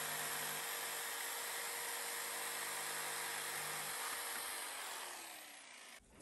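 Corded electric jigsaw running steadily as it cuts through a vinyl floor plank; the sound fades out about five seconds in.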